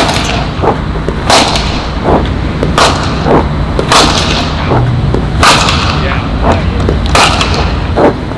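Cricket bat striking balls in the nets: about six loud, sharp cracks, roughly one every second and a half, with fainter knocks in between.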